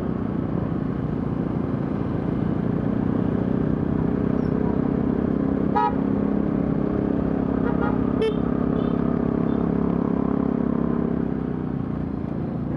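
Motorcycle engine running steadily in second gear at low speed, heard from the rider's seat, with wind noise. Two short horn toots come about six and eight seconds in.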